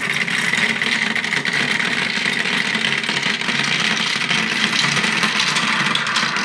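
Marble rolling and rattling along a plastic marble-run track: a loud, steady rolling rumble full of fine clicks, starting suddenly just before and running on without a break.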